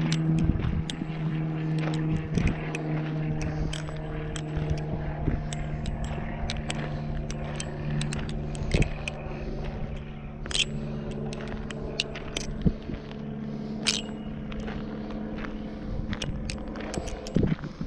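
Balisong being flipped: sharp, irregular clicks and rattles as the handles swing and strike each other, over a steady low hum.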